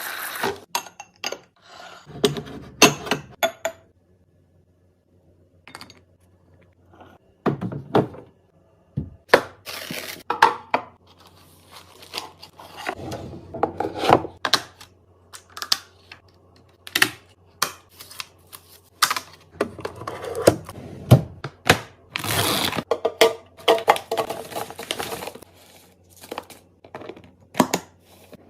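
Fridge restocking: a busy run of sharp knocks, clicks and clinks as containers, jars and bottles are set down and lids snapped on, with packaging rustling and tearing in between. The sound stops briefly a few seconds in.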